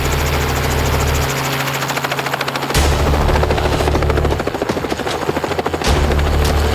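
Helicopter flying, its rotor making a fast, steady chop over the low drone of the engine.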